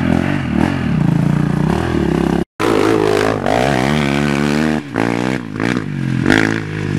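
Quad bike (ATV) engines revving and easing off, rising and falling in pitch. The sound breaks off completely for an instant about two and a half seconds in.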